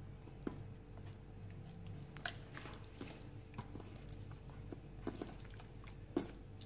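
Raw chicken pieces being pressed and rubbed by hand into a thick tomato-paste marinade in a stainless steel bowl: faint wet squelching with scattered soft clicks.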